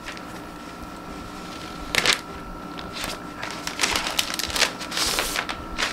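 Clear plastic protective film being peeled off a MacBook Pro's casing, crackling and crinkling in short bursts: once about two seconds in, then more steadily through the second half.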